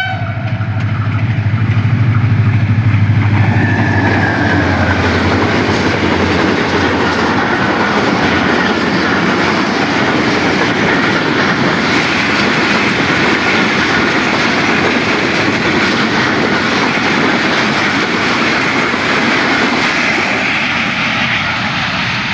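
Diesel-hauled passenger train passing close by. A loud low engine hum from the locomotive swells over the first few seconds and fades, then the coaches' wheels keep up a steady rumble and clatter on the rails, easing slightly near the end.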